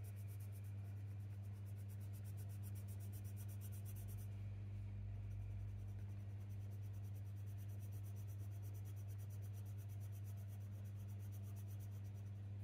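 Coloured pencil scratching softly across textured hot-press watercolour paper as it is shaded with firm pressure. A steady low hum sits underneath and is the loudest thing throughout.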